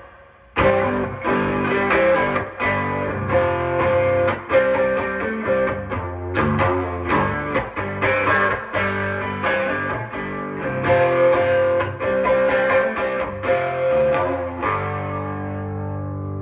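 Electric guitar played through a Fender Deluxe Reverb-style amp: picked notes and chords over ringing low notes, with a short gap just after the start and a chord left ringing near the end.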